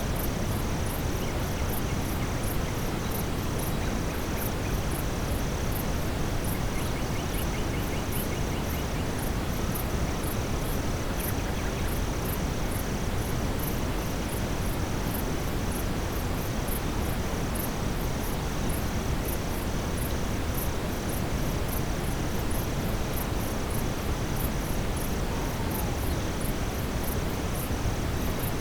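Steady brown noise, heaviest in the low range, mixed with a forest nightfall ambience: a continuous high insect drone and a very high chirping that pulses a few times a second. A brief faint trill sounds about eight seconds in.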